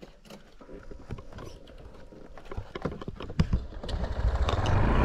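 Scattered light taps and rustles, then a motor starts running about four seconds in, growing louder and settling into a steady drone.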